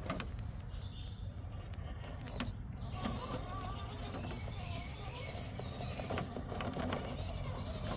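Radio-controlled scale rock crawler's small electric motor and geared drivetrain whining as it crawls over sandstone, with scattered clicks and scrapes of tyres and chassis on the rock, over a steady low rumble.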